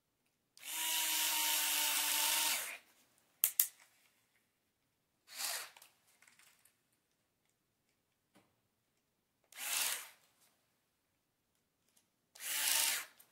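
Small electric screwdriver motor running, first a steady run of about two seconds, then a click and three short bursts.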